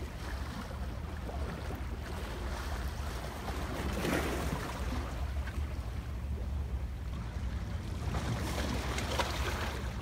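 Seaside ambience: wind rumbling on the microphone over small waves washing against rocks, the wash swelling louder about four seconds in and again near the end.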